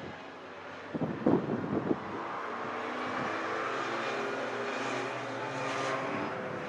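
Race cars circulating on the track, engines running at speed and swelling as they pass, with several pitched engine notes at once. A few brief loud bumps of noise come about a second in.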